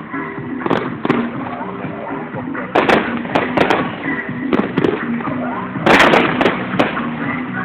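Fireworks display: an irregular series of sharp bangs and crackling bursts, about a dozen, with the loudest cluster about six seconds in, over music with held notes.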